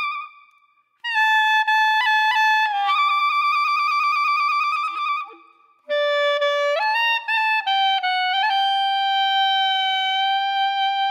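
Background music: a single wind instrument playing a slow melody of held notes in phrases separated by short pauses, the middle phrase with a fast fluttering stretch.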